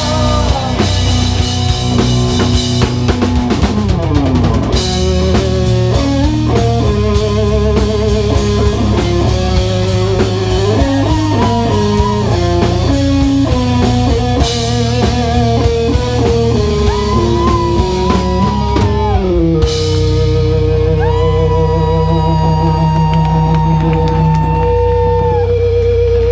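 Live rock band playing, electric guitar over drums and bass. About twenty seconds in the drums stop and long held guitar notes ring on.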